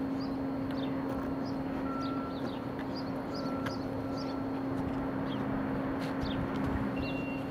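A steady low mechanical hum, with small birds chirping over it, a few short falling chirps every second.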